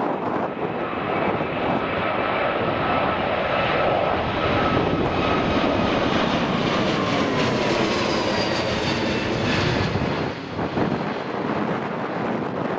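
Twin-turbofan jet airliner (Airbus A320neo family) climbing out at takeoff thrust: loud, steady engine noise with a whine that falls in pitch as the aircraft passes overhead, easing slightly near the end.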